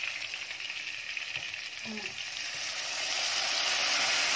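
Browned lamb and spices sizzling in a hot oiled pot as a wooden spoon stirs. About three seconds in, hot water from a kettle is poured onto the meat and the sizzle swells into a louder hiss: the water being added to start the sauce.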